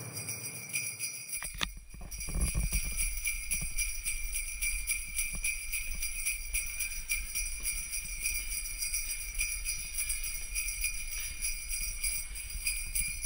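Jingle bells shaken continuously in a steady, rapid jingle.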